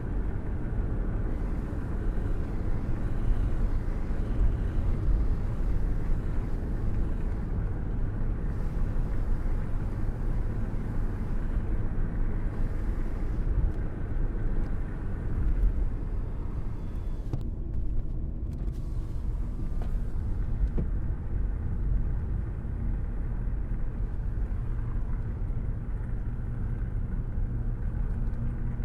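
Steady low rumble of a rainstorm: deep, even noise with little high hiss and no separate thunderclaps.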